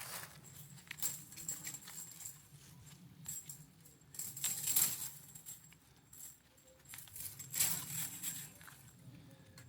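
Chain-link fence mesh rattling and rustling in irregular bursts as it is handled and tied to posts. The loudest bursts come about four and a half and seven and a half seconds in.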